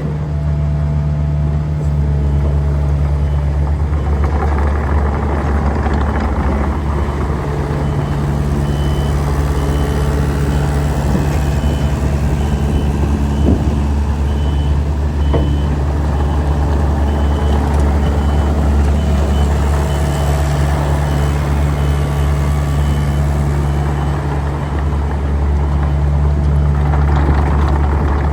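Bobcat E85 excavator's diesel engine running steadily, with a high travel-alarm beep repeating about once a second as the machine moves.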